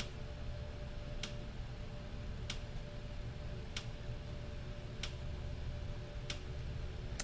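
Faint, evenly spaced clicks, about one every second and a quarter, over a steady low hum and background hiss.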